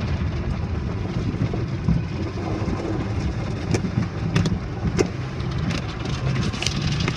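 Automatic tunnel car wash heard from inside the car: a steady rumble of the machinery and water spray on the body, with a few sharp slaps against the glass around the middle as the cloth strips and spray hit.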